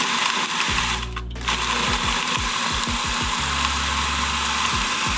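Food processor motor chopping raw cranberries and orange pieces, run in pulses: it stops briefly about a second in, gives a quick series of short pulses, then runs steadily again and cuts off near the end.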